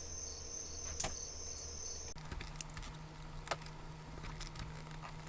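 A few soft clicks and rustles from handling a plastic blister pack, over a steady high-pitched whine and a low hum. About two seconds in, the whine jumps abruptly higher.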